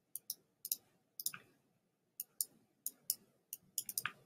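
Computer mouse clicking: scattered, faint, sharp clicks, several in close pairs, with a quicker run of clicks near the end.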